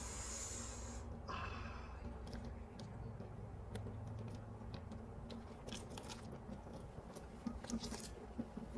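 Faint handling noise of a sheet face mask being unfolded and laid on the face: a brief rustle at the start and another about a second and a half in, then scattered small crackles and clicks.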